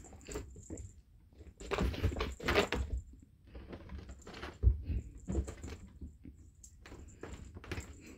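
Cats scampering after a laser dot: irregular scuffling and rustling with a few soft thumps as they scramble across carpet and leap onto a recliner, the heaviest thud about halfway through.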